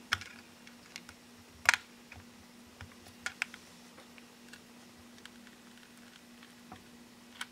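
Scattered sharp plastic clicks and taps as thin plastic opening picks are worked into the seam between a Samsung Galaxy S5's glued screen and its frame during prying. The loudest click comes a little under two seconds in.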